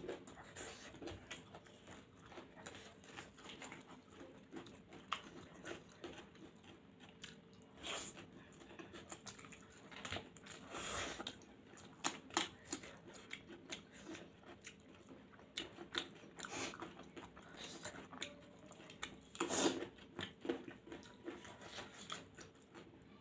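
Close-miked chewing and biting by two people eating spicy homemade flat noodles with their fingers: a steady run of irregular mouth clicks and smacks, with a few louder bites, the loudest about three-quarters through.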